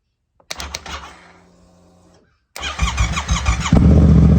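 Yamaha FZ-07's 689 cc parallel-twin cranked by bridging the starter solenoid's terminals with copper pipe. A first contact gives sharp clicks and a short whir that dies away. The second cranks for about a second before the engine catches and settles into a steady idle, which shows that the burnt-out starter solenoid, not the engine, caused the no-start.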